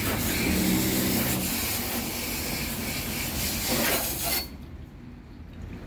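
Pressurised water from a pistol-grip garden hose nozzle spraying into a window air conditioner's blower housing, rinsing out slime: a steady hiss that cuts off suddenly about four and a half seconds in as the trigger is released.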